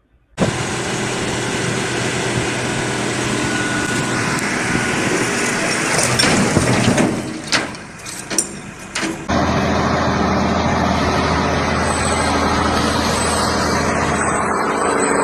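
Heavy vehicle engines running with outdoor noise, with several sharp cracks about seven to nine seconds in, then an abrupt change to another steady engine sound with a low hum.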